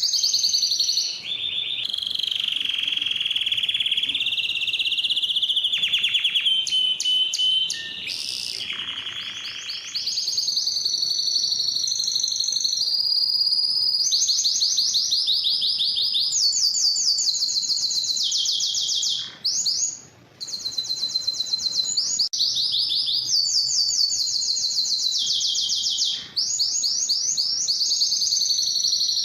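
Domestic canary (male) singing continuously, a strong song of fast repeated trills and rolls that changes phrase every second or two. A lower rolling phrase runs from about two to eight seconds in, and the song breaks off briefly about twenty seconds in.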